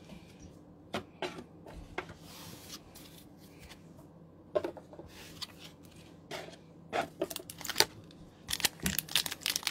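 Handling of trading cards and booster-pack wrappers off camera: scattered soft clicks and rustles, coming thicker near the end.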